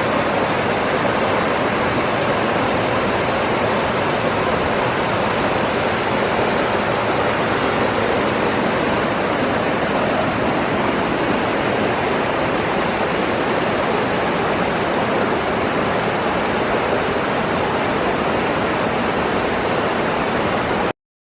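Loud, steady rush of water, even throughout, that cuts off suddenly near the end.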